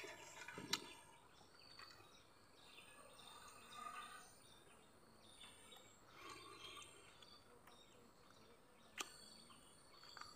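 Near silence: faint outdoor background with faint bird chirps, and two soft clicks, about a second in and near the end, as a man chews his food.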